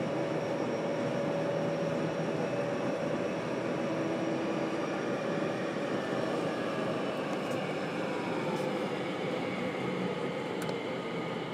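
Running sound inside a motor car of a JR Kyushu 303 series electric train: steady wheel-and-rail noise and traction-motor hum, with faint whine tones from its Hitachi IGBT VVVF inverter drifting slowly lower in pitch.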